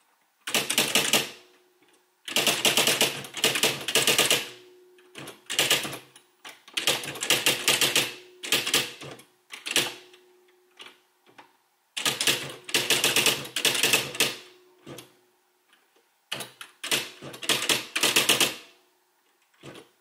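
Smith Corona SL600 SpellRight electronic daisy-wheel typewriter printing as it is typed on: runs of rapid clattering strikes, each one to two seconds long, separated by short pauses, with a faint steady hum under the runs.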